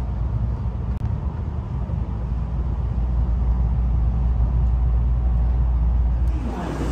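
Shinkansen train running, heard from inside the passenger car as a steady low rumble as it approaches a station.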